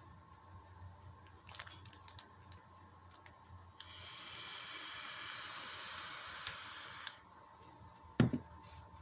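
Small clicks of parts being handled, then a steady hiss lasting about three seconds that starts and stops abruptly, and a single thump near the end.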